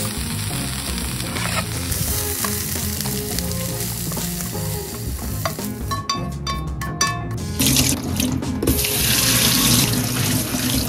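Chives, carrot and onion strips sizzling as they are stir-fried with chopsticks in a pan. Around six seconds in comes a quick run of clicks and scrapes as they are tipped into a stainless steel bowl. Then tap water runs hard onto soaked wood ear mushrooms in a metal mesh strainer in a sink.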